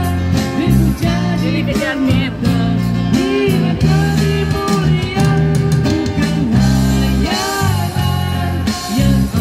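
Live band music: a man singing into a microphone, backed by acoustic guitar, a keyboard and a second guitar, played through a small amplified sound system.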